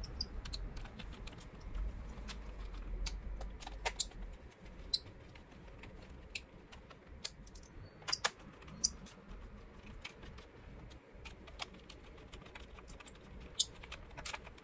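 Scattered, irregular small clicks and taps of a screwdriver and small screws against the plastic underside of a laptop as its case screws are driven back in.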